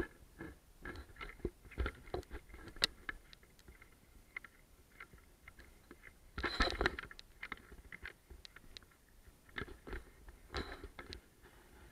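Footsteps crunching and scraping over debris and charred timber on the floor, a stream of irregular cracks and crunches with a louder scuffle about six and a half seconds in.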